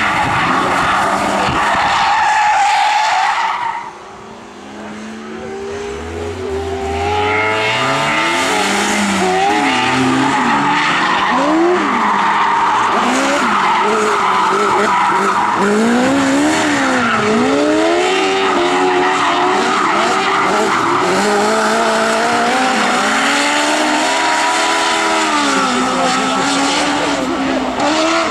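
Drift cars' engines revving up and down repeatedly as the cars slide sideways through a corner, with tyres squealing and skidding. There is a short lull about four seconds in, then continuous revving and tyre noise.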